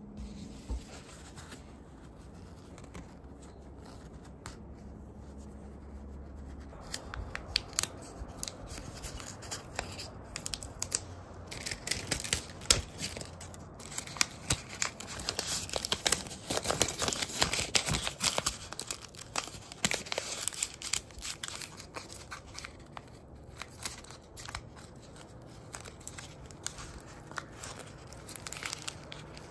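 Blue painter's tape being pulled, torn and crinkled as it is wrapped around the metal end of a wooden knife handle. Irregular crackling starts about seven seconds in and is busiest in the middle.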